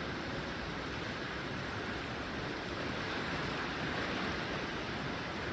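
Sea surf: a steady, even rush of waves.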